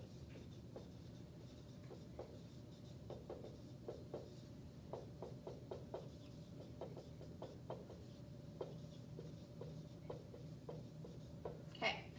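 Dry-erase marker writing on a whiteboard: a faint, irregular run of short strokes and taps as words are written out.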